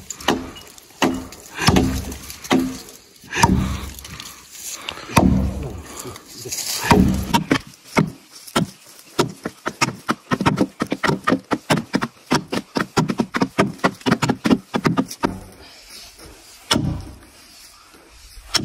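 Axe blows hewing a felled tree trunk: a series of heavy, evenly spaced wooden chops, then from about eight seconds a faster run of lighter, sharper knocks.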